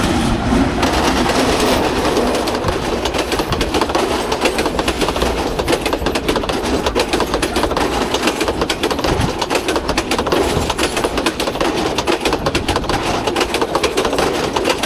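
Diesel-hauled passenger train passing close by, its coaches rolling past with a rapid, continuous clatter of wheels over the rail joints.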